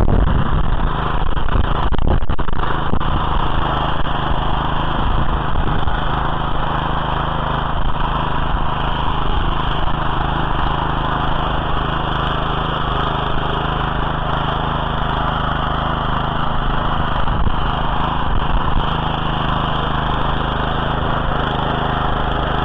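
Walk-behind tiller's small petrol engine running steadily under load as it tills garden soil.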